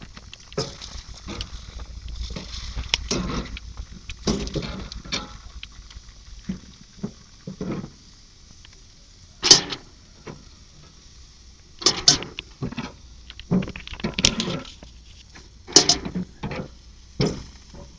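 Metal barbecue tongs clicking and scraping against a grill grate as meat is turned, in a run of sharp, irregular clacks.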